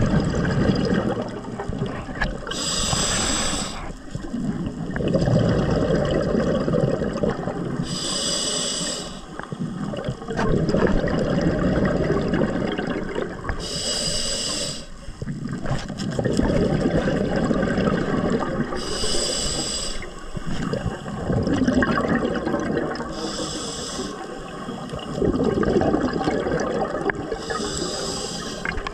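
Scuba diver breathing through a regulator underwater: six breaths, each a short hiss of inhalation followed by a few seconds of rumbling exhaled bubbles, about every five to six seconds.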